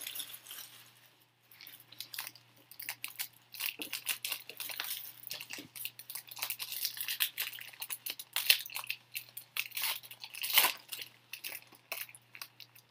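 Trading cards and their packaging being handled: irregular crinkling, rustling and sharp clicks as cards are shuffled and flipped.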